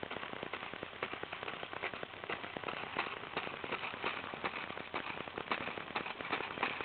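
Toy push lawnmower clicking and rattling continuously as a small child pushes it along.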